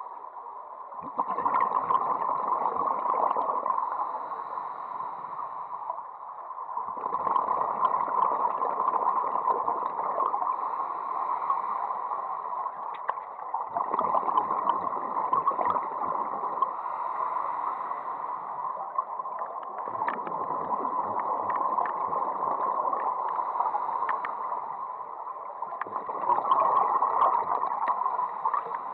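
Scuba regulator breathing heard underwater: five long, bubbling exhalations about every six seconds, with quieter stretches between them while the diver inhales.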